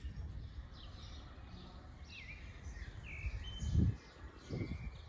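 Songbirds chirping with short gliding whistled calls over a steady low rumble, with a brief low bump about four seconds in and a softer one just after.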